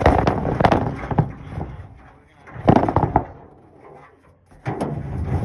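Metal rolling toolbox being shoved along, rattling and clunking in three bursts with knocks in between.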